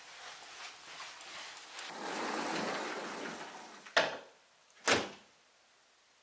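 Soft footsteps and rustling, then a rush of noise swelling over about two seconds, ending in two sharp, loud door clacks about a second apart.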